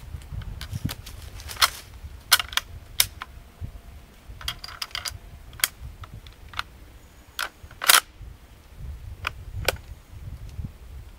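Bolt-action hunting rifle being loaded with .300 Magnum cartridges: a string of sharp metallic clicks from the bolt and magazine, spaced irregularly, the loudest about eight seconds in.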